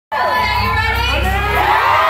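A crowd of fans screaming and cheering, many high voices shrieking at once.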